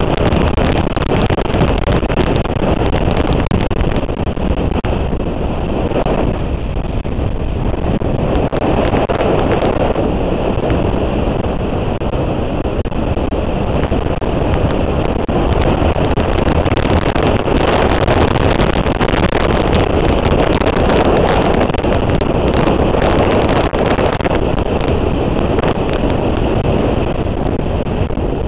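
Wind rushing over the microphone of a moving motorcycle: a loud, steady rush with the motorcycle's engine and road noise underneath.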